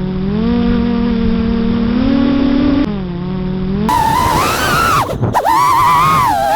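FPV racing quadcopter's brushless motors whining, the pitch rising and falling as the throttle is worked. The sound is dull and muffled for about the first four seconds, then turns brighter, with a brief drop in level about five seconds in.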